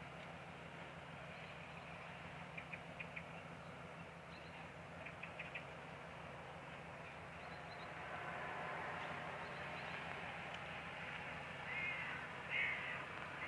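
Crows cawing, with harsh calls loudest near the end and short clipped notes earlier, over a steady low hum and a wash of outdoor noise that swells about eight seconds in.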